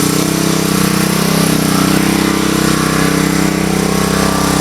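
Small gasoline engine of a 2,200 psi pressure washer running steadily after being started.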